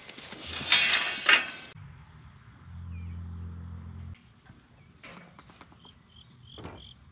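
Sheep being sorted through a steel sorting race: a loud sheep bleat about a second in, then scattered knocks and rattles from the metal race and gate.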